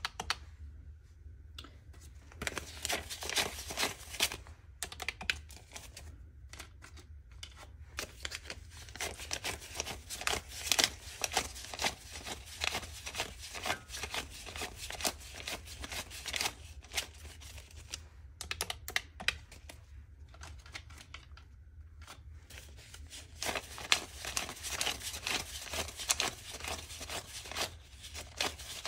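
Paper banknotes being flicked and counted by hand, a dense run of crisp rustles and snaps with a few brief pauses, mixed with taps on the plastic keys of a desk calculator.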